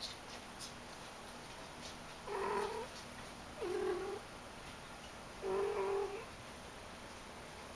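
Persian cat meowing three times, each meow about half a second long and a second or so apart.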